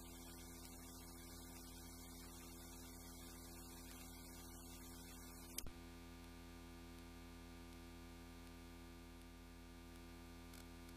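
Low, steady electrical mains hum with faint hiss, with a single brief click a little past halfway.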